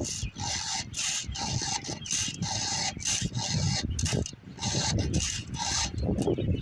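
Hand file rasping across a chainsaw chain's cutters in quick, even strokes, about two a second, with a brief pause partway through: the chain being sharpened.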